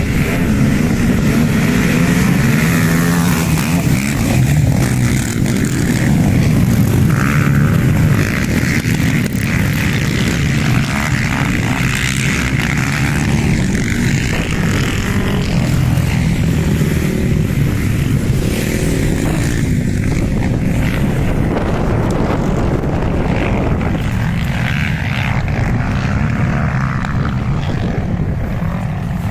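ATV (quad bike) engines running hard, revving up and down.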